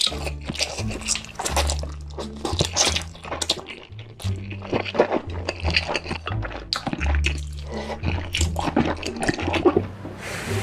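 Background music with a steady bass line, mixed with close-miked wet slurping and chewing of instant noodles.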